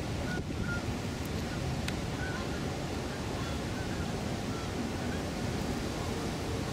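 Steady rumble of wind on the microphone and water on an open tidal river, with a few faint short chirps.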